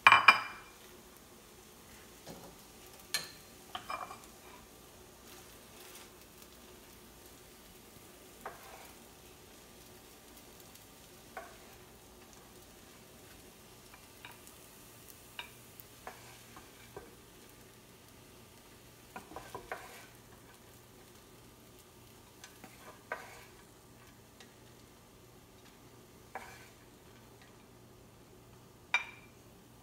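A spoon scraping and clinking against a pan and a ceramic plate as cooked sabudana khichdi is served out. The knocks are short and scattered, with the sharpest clink right at the start and another near the end.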